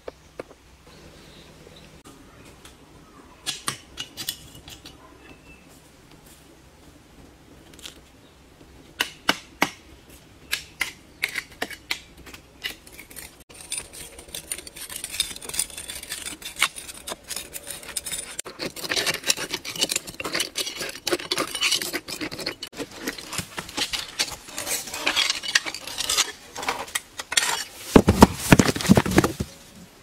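Machete blade striking and scraping in a crack in a stone boulder: irregular runs of sharp metallic clicks and scrapes that grow denser after the first few seconds, with a louder, deeper burst of scraping near the end.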